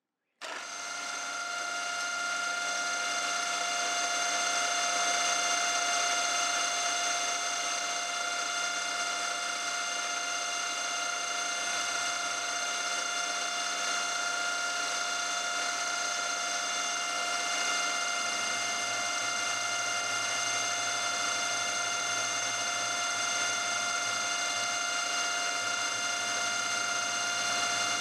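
Milling machine spindle starting up and running steadily, with a whine on several fixed pitches, as a 6 mm carbide end mill cuts an aluminium bar.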